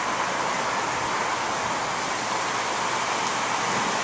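Steady rushing noise of a severe storm's wind, an even hiss with no breaks.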